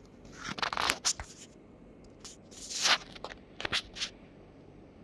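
Handling noises from cardboard and plastic packaging and a die-cast model car: three short bursts of rustling and scraping with sharp clicks, the loudest just before the midpoint.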